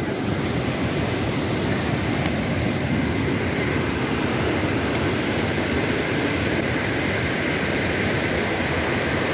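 Steady rushing of a flowing river stream, an even, loud wash of water noise.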